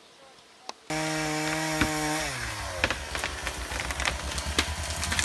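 Petrol chainsaw engine. It starts about a second in, running fast at a steady high pitch, then the revs drop away and it settles into a throbbing idle with scattered clicks.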